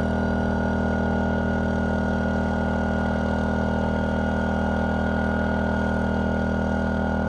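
DuroMax XP2000is inverter generator's small engine running steadily at high speed under a near-full 1500-watt load, heard from the exhaust side, a constant drone with a steady hum.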